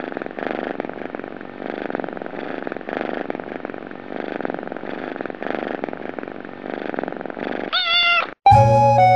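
Kitten purring steadily, the purr swelling and fading with each breath, then one short meow about eight seconds in. Guitar music starts right after the meow.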